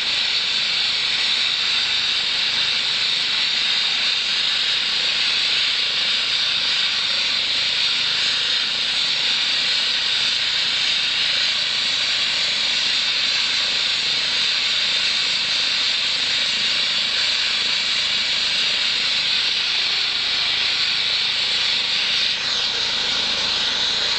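Air ambulance helicopter running on the helipad before take-off: its turbines and rotor give a loud, steady high-pitched hiss that holds at one level throughout.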